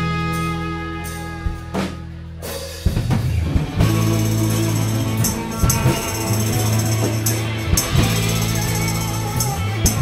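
Live band music: held notes over a steady bass for the first few seconds, then about three seconds in the full band comes in with a drum kit beating time.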